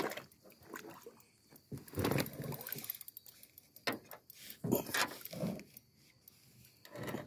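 Water splashing and a few sharp knocks against the side of a metal jon boat.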